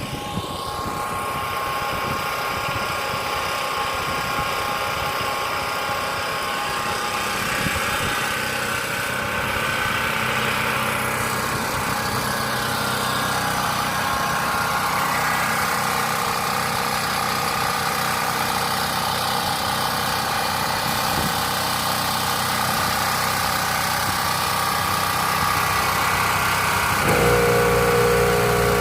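Portable open-frame generator engine running steadily. Near the end a deeper, louder hum joins and the sound grows a little louder.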